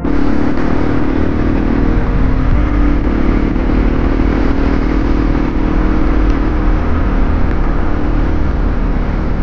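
Hero Impulse's 150 cc single-cylinder engine running at a steady speed on the move, under heavy rushing air noise and low rumble.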